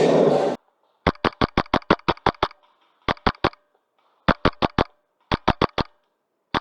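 Wolverine MTW HPA airsoft rifle firing in rapid bursts of sharp shots, about eight a second, with brief pauses between bursts, the longest burst about a dozen shots. A loud rushing noise in the first half second cuts off suddenly before the first burst.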